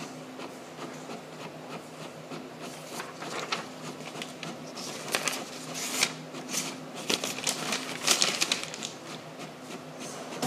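Home printer running a print job: a steady low hum under a run of rapid mechanical clicks and rasps, busiest in the middle.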